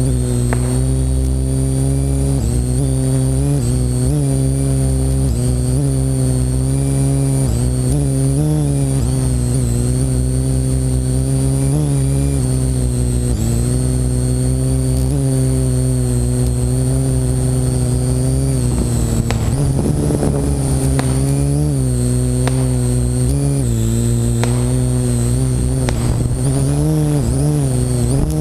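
Parrot AR.Drone quadcopter's electric motors and propellers whirring in flight, with a high motor whine over them. The pitch wavers up and down as the motor speeds change, and there is a rougher, unsettled stretch about two-thirds of the way through.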